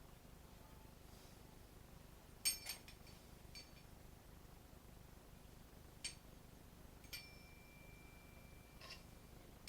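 A handful of sharp metallic clinks, about five in all, from metal tools and chainsaw parts being handled on a workbench during disassembly. One clink leaves a brief ringing tone, and the loudest comes a couple of seconds in; between them it is near silence.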